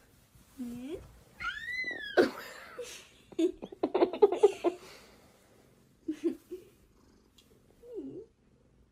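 Cats meowing several times: a high meow that rises and falls about two seconds in, a quick run of short sounds around four seconds, and shorter meows near the end.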